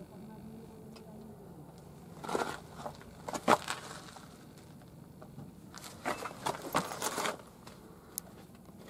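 Loose gravel and dirt crunching and crackling in short bursts, about two seconds in, around three and a half seconds, and again for about a second and a half from six seconds. A faint steady low hum lies underneath.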